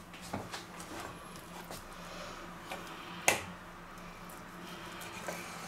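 Small kitchen knife slicing raw chicken breast on a wooden cutting board: faint, soft cuts with small clicks, and one sharp click a little over three seconds in.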